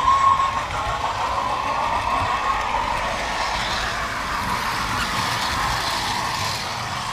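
Model train running along the track, heard close up from a wagon in the train: a steady rolling rumble and rattle of small wheels on the rails. The noise turns brighter and hissier for a few seconds in the middle.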